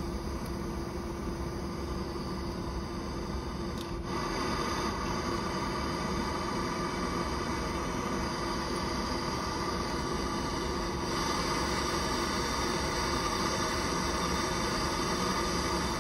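Handheld gas torch flame hissing steadily while heating the copper pipe to solder in a replacement high pressure switch, growing louder about four seconds in and again around eleven seconds. A steady hum runs underneath.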